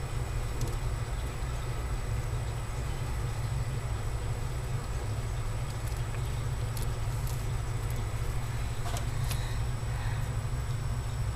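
Steady low hum, with a few faint clicks in the second half.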